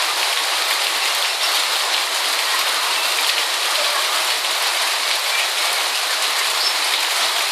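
Steady hiss of light rain falling in a drizzle.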